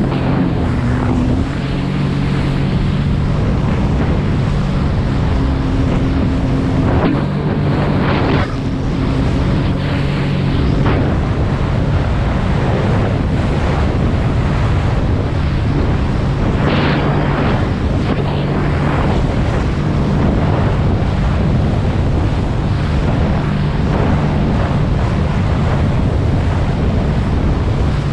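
Sea-Doo GTI 130 jet ski with a four-stroke Rotax 4-TEC engine running steadily at cruising speed across open sea, its drone mixed with water rushing and spraying off the hull. Several louder splashes come as the hull slaps through the chop, and wind buffets the microphone.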